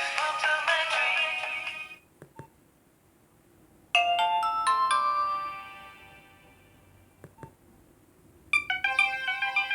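Nokia 1208b mobile phone playing ringtones through its small speaker. One tune stops about two seconds in, and a short run of bright, chime-like notes starts about four seconds in and rings away. Another ringtone begins near the end, with a few faint clicks in the quiet gaps.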